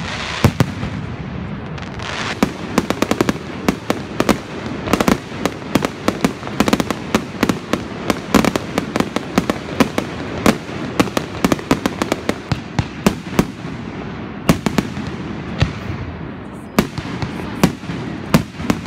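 Fireworks display: aerial shells bursting in a rapid, irregular string of bangs and crackles. The bangs come thickest through the middle and thin out near the end.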